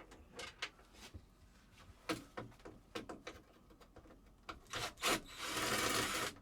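Camper air conditioner's cover being worked loose and pulled off: a run of clicks and knocks, then a loud scraping rub for about a second near the end.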